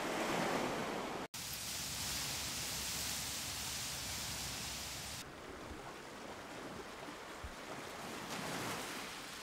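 Sea surf: a steady rushing wash of waves. It cuts out for an instant about a second in, turns duller and softer about five seconds in, and swells again near the end.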